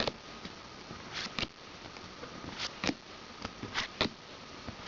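Trading cards and a booster-pack wrapper being handled and flicked through: several short, crisp clicks and rustles, some in quick pairs.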